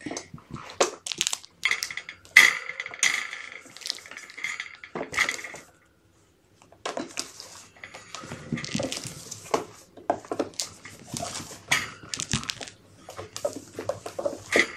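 Kittens' claws scrabbling and clattering on a plastic scale tray, with repeated clicks and knocks as they climb on and are lifted off. A brief quiet about six seconds in.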